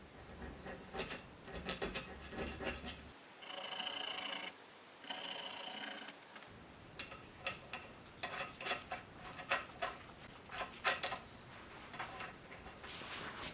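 Hand-tool work at a bench: irregular scraping, clicks and taps, with two steady rasping stretches of about a second and a half each, like filing.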